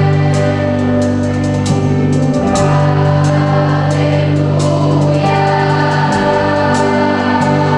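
Gospel music: voices singing together over sustained keyboard chords, with light percussion ticks.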